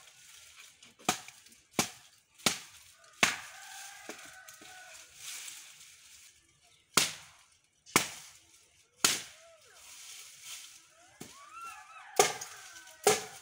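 Sharp blows of a hand tool striking old wooden fence poles, about nine strikes at uneven intervals, with short gliding bird calls between them.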